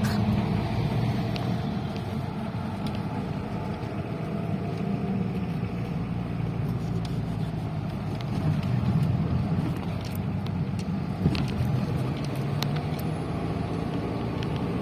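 Steady engine and road noise inside a moving car, a continuous low rumble, with a single sharp click about eleven seconds in.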